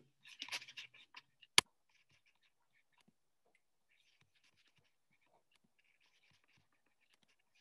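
A few faint rustling handling noises, then one sharp click about a second and a half in, followed by near silence.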